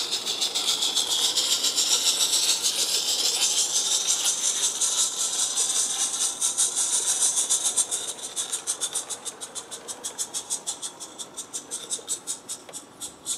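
Roundhouse Engineering 'Karen' 16 mm live steam locomotive chuffing, a fast, even run of hissy exhaust beats as it hauls its train. The beats fade after about eight seconds as the engine draws away.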